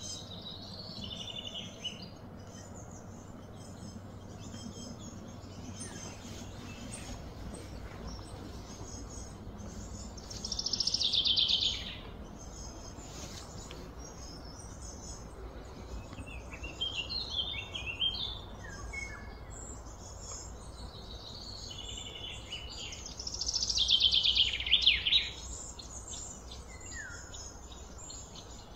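Birds chirping and calling, with two louder trilled calls that fall in pitch and last about a second and a half each, one about ten seconds in and another about twenty-three seconds in, over a steady low background hum.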